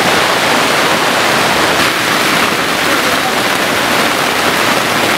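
Torrential rain pouring down: a steady, loud hiss of the downpour.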